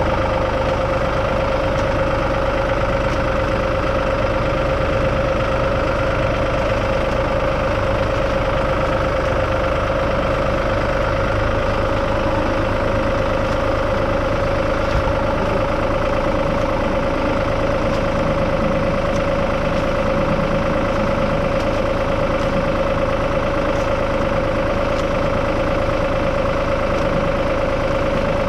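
Vehicle engine idling steadily, its even note unchanging throughout.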